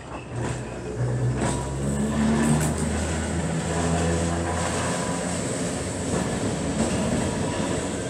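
Leeds tram 399, an electric double-deck tram, passing close by and running away along the track: the hum of its motors and gearing in several steady low tones that change pitch in steps, growing louder about a second in, with a few sharp clicks.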